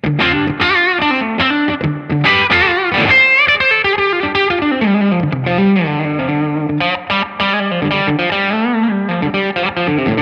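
Electric guitar played through a Laney Lionheart Foundry combo amp's clean channel with the boost switched in, giving a light overdrive, with the amp's reverb turned up. The guitar plays a melodic single-note lead line with bends and vibrato.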